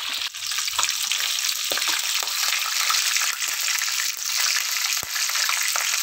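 Chicken pieces deep-frying in hot oil in a pan: a steady sizzle full of small crackling pops, which swells up at the start and then holds even.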